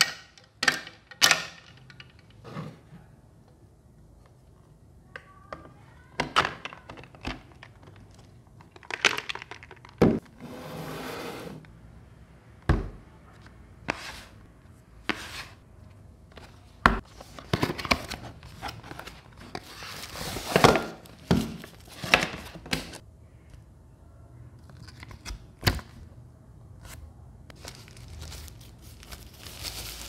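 Handling sounds of unboxing a small humidifier: ice dropping into the water tank at the start, then scattered knocks and taps of hands on a cardboard box and plastic parts, a stretch of rustling about ten seconds in, and a plastic bag crinkling near the end.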